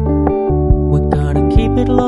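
Background pop music: keyboard chords over a steady beat, in the instrumental lead-in before the vocals.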